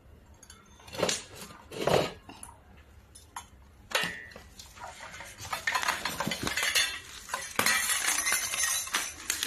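Metal candelabra parts clinking and knocking together as they are handled: a few separate knocks in the first four seconds, then a dense run of clattering with rustling from about five seconds in.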